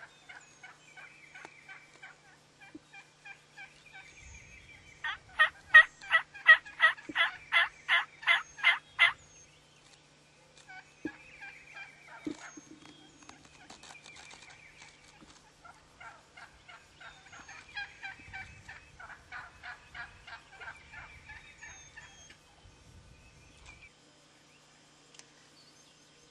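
Wild turkeys calling close by. A loud run of about a dozen evenly spaced notes comes from about five to nine seconds in, a softer run follows later, and fainter calls fall between them.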